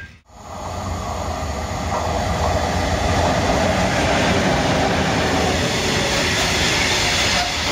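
A freight train of tank wagons hauled by an ET22 electric locomotive rolls past at speed: a loud, steady rumble of wheels on rails that swells over the first two seconds, then holds.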